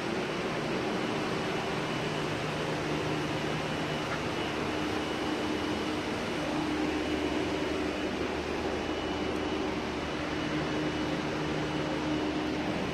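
Steady hum and rushing air of a building ventilation unit, with a faint thin whine above it.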